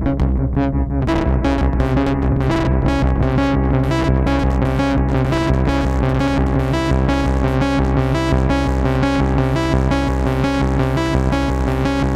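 Modular synthesizer patch playing: synced Moog Matriarch oscillators sounding chord-like harmonies over a heavy, gritty low end, mixed and fed back through a Doepfer A-138m matrix mixer. Fast high ticking hits run over it, about five a second, from about a second in.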